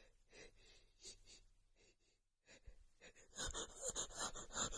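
A woman's soft breathing, then, about three seconds in, a run of quick breathy gasps, several a second: the hitching inhales of a sneeze coming on.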